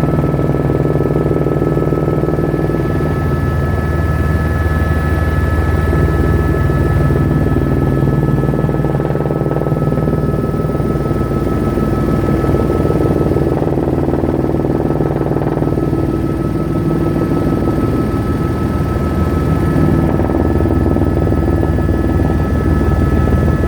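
Helicopter in flight, heard from inside the cabin: a steady drone with a constant high whine on top.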